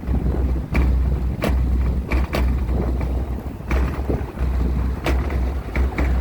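Two 15-inch Kicker subwoofers playing music at high volume: deep bass notes in long pulses with short breaks, with sharp percussive hits on top.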